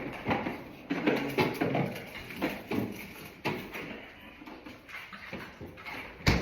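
Knocks and clatter of objects being handled and set down in a kitchen, with the sharpest knock near the end.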